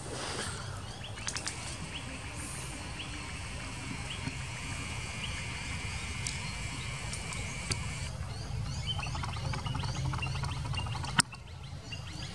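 Many birds chirping over a steady low rumble. There is a single sharp click about eleven seconds in.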